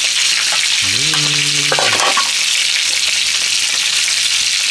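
A steady, loud hiss like frying, unchanged throughout, with a short hummed voice about a second in.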